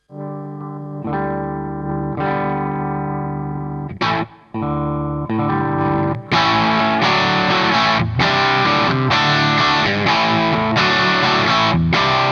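Electric guitar played through a Fattoria Mendoza effects pedal with a distorted tone. A few chords are struck and left to ring, then about six seconds in a continuous, busier rhythm part starts.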